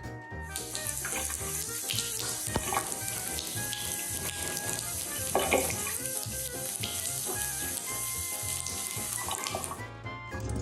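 Water running steadily from a tap, starting about half a second in and cut off shortly before the end, over background music.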